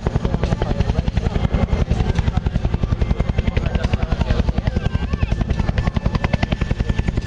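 Agusta-Bell AB212 helicopter in flight, its two-bladed main rotor beating with a rapid, even thump that stays steady throughout.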